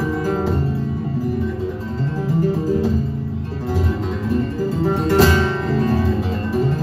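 Solo nylon-string flamenco guitar played live: picked melodic runs over bass notes, with a sharp strummed chord about five seconds in.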